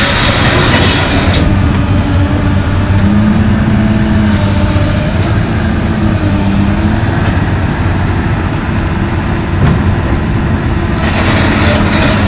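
Komatsu PC220LC excavator's diesel engine running under load, with a steady hydraulic whine as the upper structure swings around. A broad hiss fades out about a second and a half in and comes back near the end.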